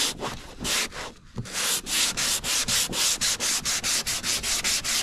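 180-grit sandpaper rubbed back and forth by hand over a fibreglass car bumper, about three strokes a second, with a short pause about a second in. This is fine sanding to take out the coarser 80-grit scratches.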